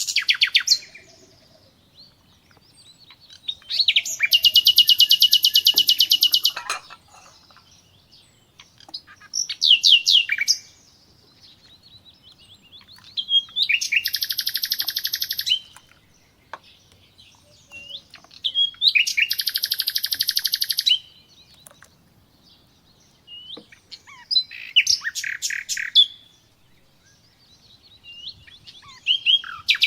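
A songbird singing: repeated song phrases about every five seconds, each a few short notes running into a fast, even trill lasting one to three seconds.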